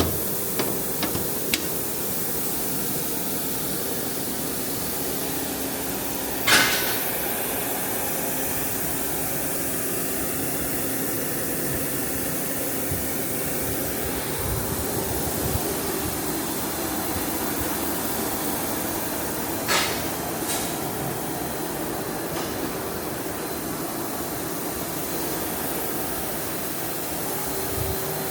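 Steady hum and hiss of a powered-up machine running, with a few sharp knocks: the loudest about six and a half seconds in and two more close together around twenty seconds.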